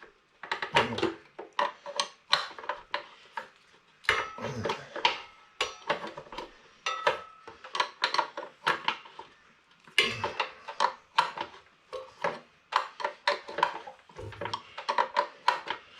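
A metal wrench clinking, knocking and scraping against the metal fittings of an air compressor's regulator manifold as a pressure gauge is unscrewed, in a long run of irregular sharp clicks and clanks.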